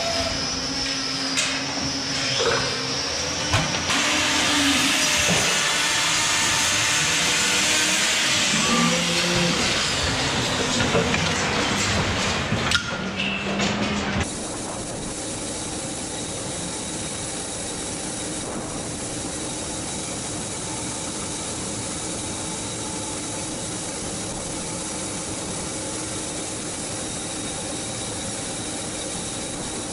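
Hoof trimming on a cow in a metal chute: a few knocks and clanks, then a loud steady hiss from about 4 seconds to 12 seconds, typical of an angle grinder with a trimming disc shaving the hoof. It cuts off suddenly after about 14 seconds into a quieter, steady machinery hum with a few fixed tones, from a grain-cleaning machine being fed by a wheel loader.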